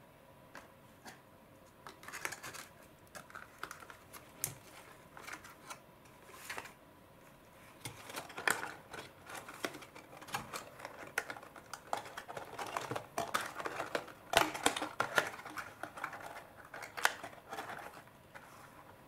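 Thin plastic and paperboard being handled: irregular clicks, taps and crinkles as a plastic slime tub is packed into its cardboard box and the flaps are folded and pressed shut. The clicks are sparse at first and come thick and fast from about a third of the way in.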